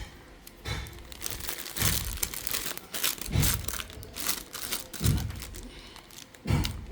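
Plastic packaging of modelling clay crinkling and rustling as it is handled and opened, with a few soft thumps on a tabletop.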